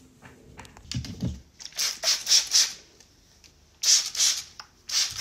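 Hand-held trigger spray bottle misting water onto hair in short hissing spritzes: about four quick sprays in a row around two seconds in, then a few more near the end.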